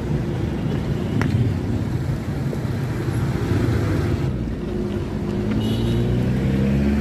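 Road traffic rumble, with a motor vehicle's engine coming up in the second half, its pitch rising slightly.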